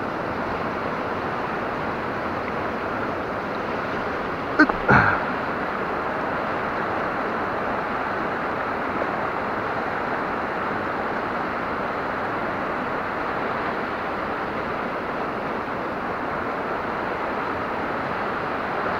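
Steady hiss of river water running over rocks. About five seconds in comes a short, sharp sound twice in quick succession, falling in pitch.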